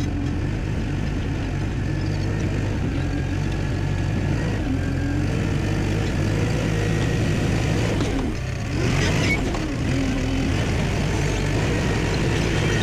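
CAT D5K crawler dozer's diesel engine running under load as it works the dirt. The engine note dips briefly about eight seconds in, then picks up again.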